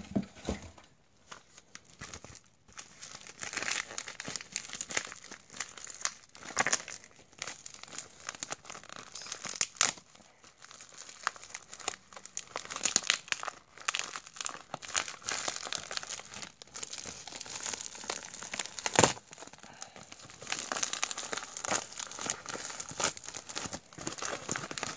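Paper wrapping crinkling and tearing as it is unrolled and pulled open by hand, in irregular rustles with a few sharper crackles, the loudest about 19 seconds in.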